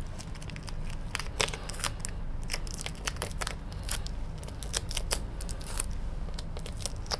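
Irregular crisp clicks and rustles of paper and card teaching materials being handled and stuck onto a whiteboard, over a steady low hum.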